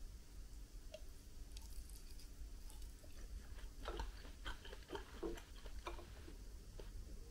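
Quiet chewing of a grilled chicken skewer (yakitori), with a few light clicks and taps of bamboo skewers and tableware on the table from about four seconds in.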